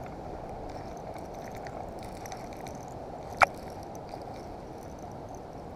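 Steady wind rumble on the microphone, with one sharp click about three and a half seconds in.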